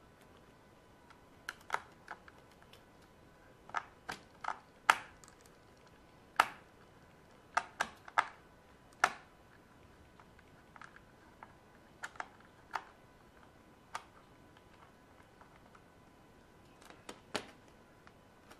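Irregular sharp clicks and taps of a screwdriver and the plastic housing of an Electrolux ESI4005 steam iron being handled while a screw is taken out. The loudest clicks bunch in the first half, with lighter, sparser ones after.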